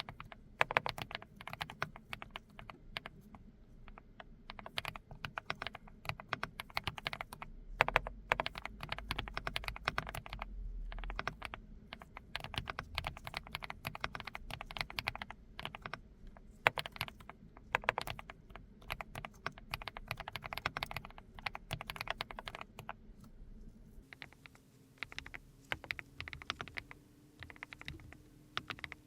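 Fast typing on a GX87 custom aluminium mechanical keyboard with Mist Blue switches: a steady stream of key clacks with a rounded, pebble-like 'dogak-dogak' sound. About 24 seconds in, the sound shifts to a second GX87 board, the SE, with more background hiss and a faint hum.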